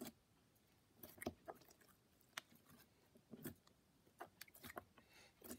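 Faint, scattered sticky clicks and small squelches of slime-like trumping putty being squeezed and pulled in the hand.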